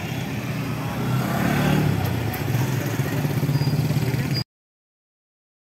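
Street traffic with a motor vehicle engine running close by, a low steady hum that grows louder about a second in. The sound cuts off abruptly near the end.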